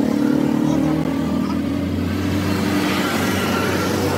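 A vehicle engine running steadily, cutting in abruptly at the start.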